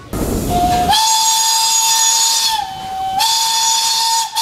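Steam locomotive's whistle blowing one long blast, opening with a rush of noise. The tone steps up in pitch about a second in, dips lower briefly past the middle, and cuts off near the end.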